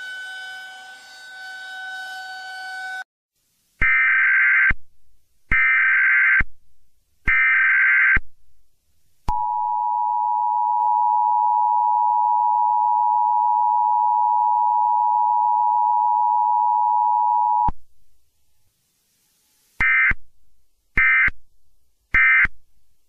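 Emergency Alert System tones for a civil danger warning. A siren tone cuts off about three seconds in, then come three data-header bursts of about a second each. The steady two-tone attention signal holds for about eight seconds, and three short end-of-message bursts follow near the end.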